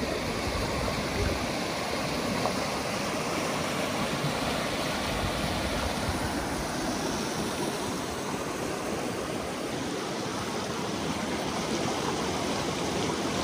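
Steady rush of flowing water from a mountain stream or river, even and unbroken.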